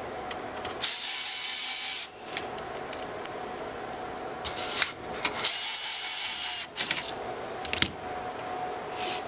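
Cordless electric screwdriver driving screws into a server's metal drive cage: it runs in two bursts of about a second each, with small clicks and taps of metal between.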